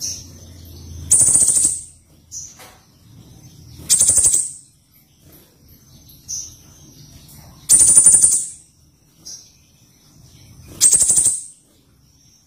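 Small songbird kept as a 'pentis raja' calling repeatedly: four dry, rapid, high rattles of under a second each, about every three seconds, with short thin high notes between them.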